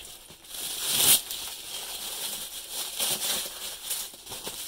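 Clear plastic sleeve crinkling and rustling in uneven bursts as it is handled around a belt's carrying case, loudest about a second in.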